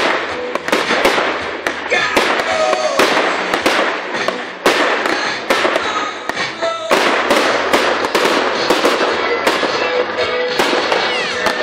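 Fireworks display: aerial shells bursting in quick succession, two or three bangs a second, with music playing underneath.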